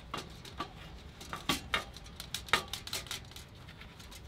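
Irregular sharp metal clicks and clinks, about ten of them, from screwdrivers prying a clutch pressure plate off the flywheel's locating pins.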